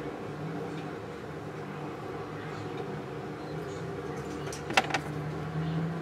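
Steady low mechanical hum of a jeweller's bench, with one sharp metallic click about three-quarters of the way through as a stone-setting tool strikes the gold pavé ring.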